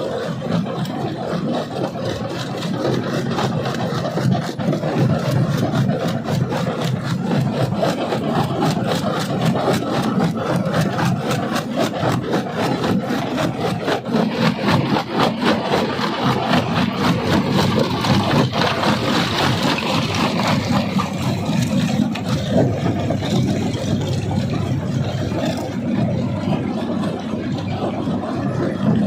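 Jaw crusher running and crushing rock: a steady mechanical rumble with a dense, continuous run of small knocks and grinding scrapes.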